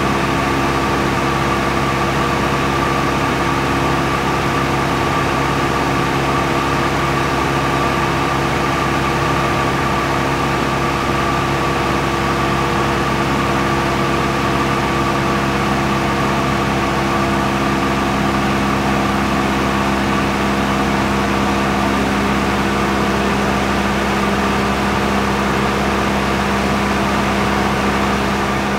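Steady drone of an aircraft's motors and propellers, holding several fixed tones without change.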